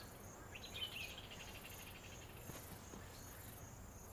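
Faint insect chirping, a steady high pulse repeating a few times a second, with a short, brighter trill about half a second in.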